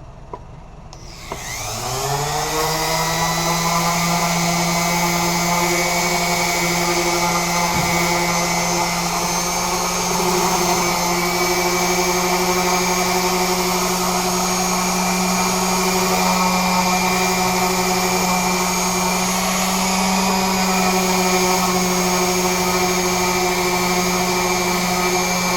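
Electric sander starting up about a second in, its motor rising in pitch, then running steadily with a constant whine while sanding overspray off wood.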